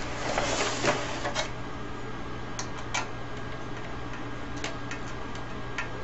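Hand screwdriver working screws out of a CRT television's chassis: a scraping rustle for about a second and a half, then a few scattered clicks.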